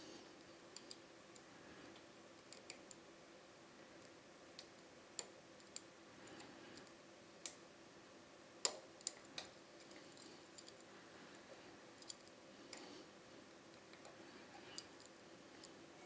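Faint, irregular small metallic clicks and ticks of a hook pick working the pins of a Dom IX-6 KG pin-tumbler cylinder under a tension wrench, scattered across the stretch with the sharpest click a little past halfway.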